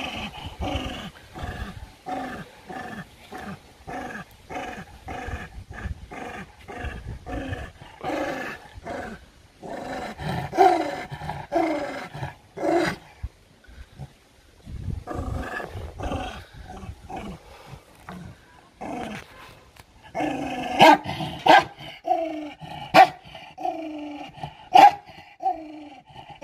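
Dog growling aggressively in rhythmic pulses, about two a second, with longer drawn-out growls in the middle. Near the end it breaks into several louder, sharper barks.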